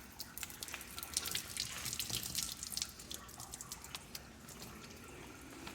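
Water dripping and trickling from the boat's open hull drain hole, with many small irregular drips that thin out after about three seconds.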